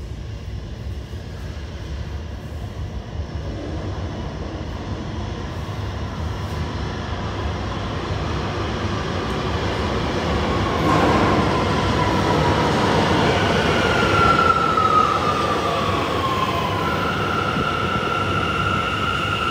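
Bombardier R179 subway train pulling into an underground station: a rumble that builds as it approaches, a falling whine as it slows along the platform, then a steady high tone near the end.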